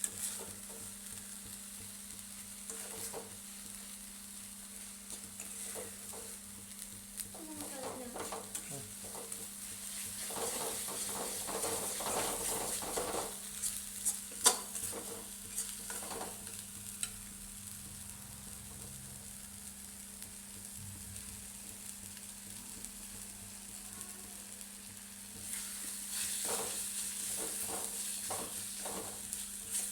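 Chicken frying in hot oil in a pan, sizzling steadily, while a spatula stirs it with scattered scrapes and clicks against the pan. There is one sharp loud clack about halfway through.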